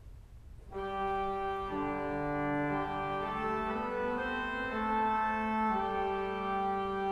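Organ playing slow, sustained chords as the introduction to a choral piece, coming in about a second in.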